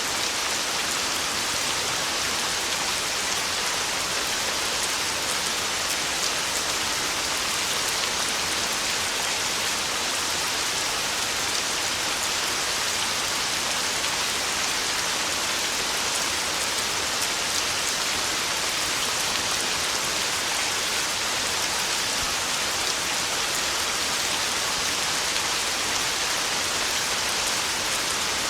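Heavy rain falling steadily on a tin roof: a dense, even hiss of countless drops, with no thunder.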